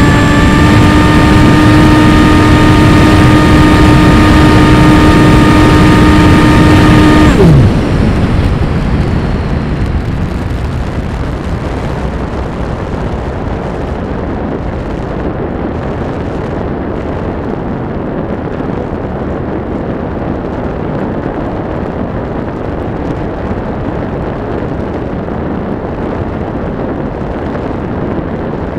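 RC plane's motor and propeller running at a steady pitch, then cutting out about seven seconds in with the pitch sliding down. After that, a steady rush of wind noise as the plane glides with the motor off.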